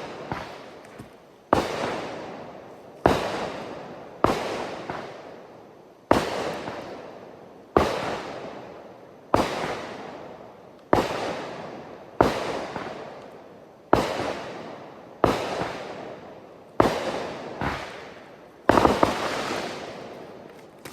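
Consumer fireworks going off: a steady string of sharp bangs, about one every one and a half seconds, each trailing off over about a second.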